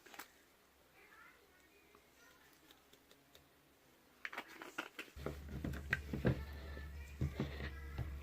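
Small electric mixer switched on about five seconds in and running steadily, blending mica colourant into cold process soap batter, with clicks and knocks of the container just before and during.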